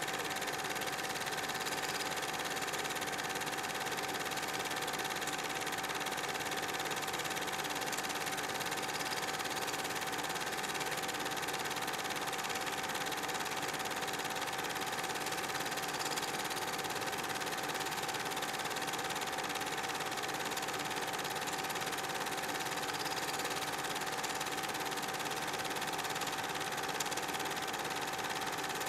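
Steady mechanical whirring with a constant high hum tone, unchanging throughout.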